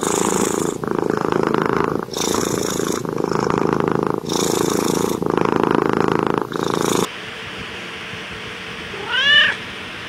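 Tabby cat purring loudly close to the microphone, in long strokes of one to two seconds, which stops about seven seconds in. Near the end another cat, a calico, gives one short meow.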